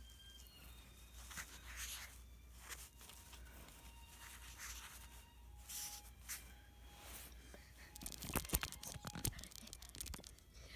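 Pokémon card booster pack wrapper being torn and crinkled in the hands, in scattered rustles, with a denser burst of sharp crackling about eight seconds in.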